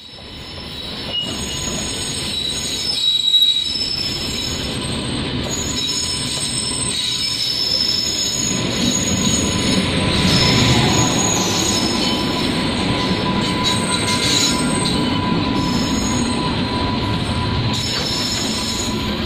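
Train wheels running on the rails, a steady rumble with thin high squealing tones that come and go. The rumble grows heavier about nine to ten seconds in, as a passenger train passes close alongside on the next track.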